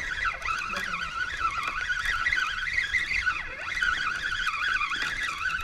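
Daiwa spinning reel being cranked, its gears giving a whining whir that wavers up and down in pitch with the turning handle, as line is reeled in on a fish that has just taken the bait.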